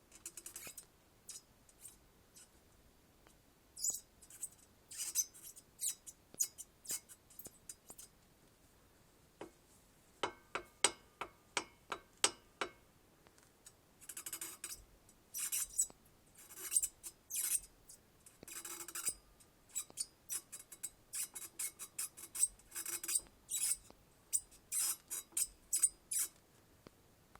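Driveshaft universal-joint cross of a LADA 2107 squeaking: a long series of short, sharp, high-pitched squeaks in irregular groups, with a run of clear pitched squeaks about ten seconds in.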